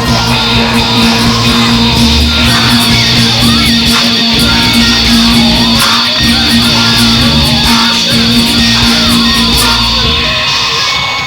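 Loud, dense band music led by guitar, with held tones running under it; near the end it thins out into a sparser texture.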